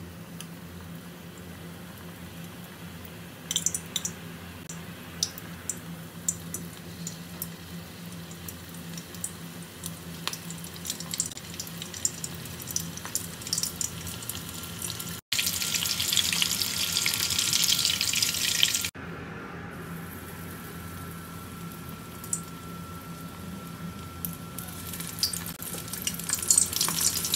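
Panko-coated shrimp deep-frying in hot oil in a wok: a steady sizzle with scattered crackles and pops. About halfway through, a louder stretch of sizzling starts and stops abruptly, and a faint low hum runs underneath.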